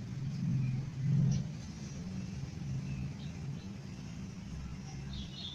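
Low, steady hum of a motor vehicle engine, swelling briefly about a second in, with faint bird chirps over it. Near the end a sooty-headed bulbul (kutilang) calls.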